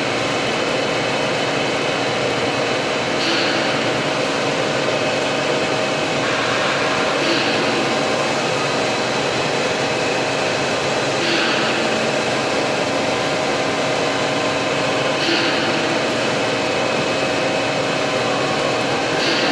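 Industrial wet floor-scrubbing machine running with a steady motor and suction whir. A brief brighter hiss comes back about every four seconds.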